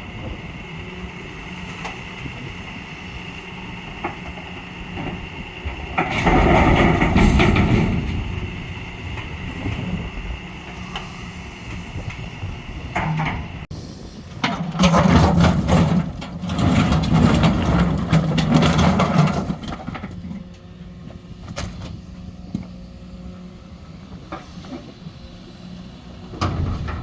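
Heavy diesel machinery running steadily. There are two long, loud stretches of rumbling and rattling, about six seconds in and again from about fourteen to nineteen seconds, as the excavator loads rocks into the truck.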